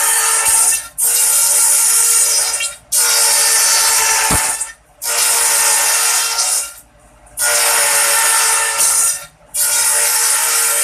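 Small electric bamboo satay-skewer machine working bamboo sticks in repeated passes: a loud, high-pitched whirring grind lasting one and a half to two seconds each time, about six times, with short breaks between.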